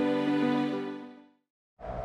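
Soft background music of sustained notes fading out over about a second and a half. A brief silence follows, then steady background noise comes in near the end.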